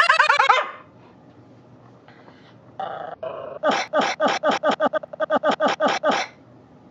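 A small dog's bark, chopped and repeated in the manner of a meme edit. A rapid stutter falls in pitch at the start, and from about four seconds in comes a fast run of about fifteen identical short barks, about six a second.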